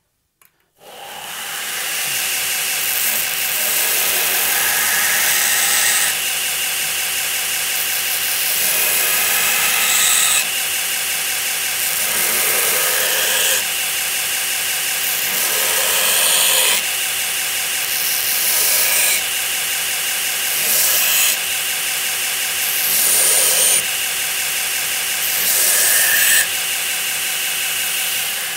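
Belt grinder with a worn-out 36-grit belt grinding the Damascus steel tang of an integral chef's knife to straighten and taper it. A steady motor whine under a loud hiss, growing louder and softer in passes every few seconds. It starts about a second in and dies away at the end.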